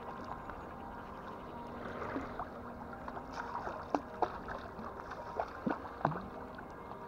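River water lapping and splashing, with a run of small sharp plops and gurgles from about two seconds in, the loudest near four and six seconds.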